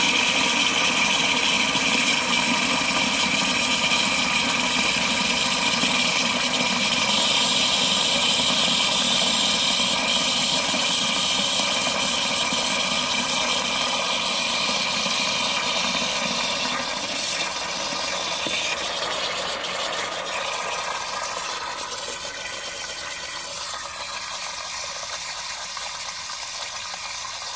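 Float valve refilling a rusty iron toilet cistern after a flush: water hisses through the valve and splashes into the tank. The flow eases off and grows quieter over the second half as the stream thins and the valve begins to close.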